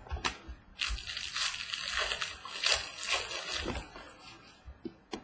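Crinkling and rustling of a foil trading-card pack wrapper being handled, starting about a second in and lasting about three seconds, with sharp crackles. A few light knocks follow near the end.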